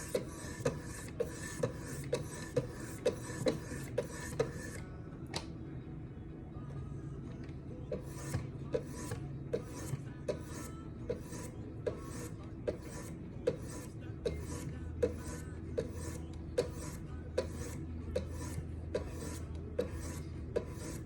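High-grit diamond stones of a Wicked Edge guided sharpener stroked with honing oil along a knife blade's edge: a repeated rasping scrape with a light click on each stroke, about two strokes a second. The strokes pause for about three seconds some five seconds in, then resume. The high-grit stones are refining each side of the edge without raising a burr.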